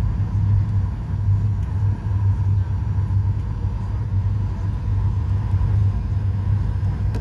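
Cabin noise of a Boeing 737-800 on final approach, heard from a window seat over the wing. The CFM56-7B turbofan engines and the airflow make a steady low rumble with a faint, steady high tone running through it.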